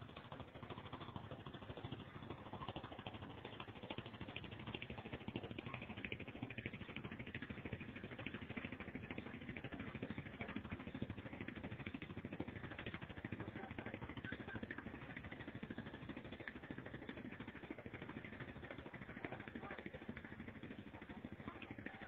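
Diesel engine of a KATO tracked excavator running steadily under load as the machine is worked onto a barge.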